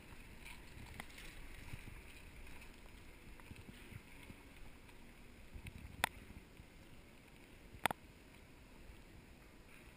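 Faint low rumble of riding a Segway along a paved street, with wind on the microphone. Two sharp clicks stand out, about two seconds apart past the middle.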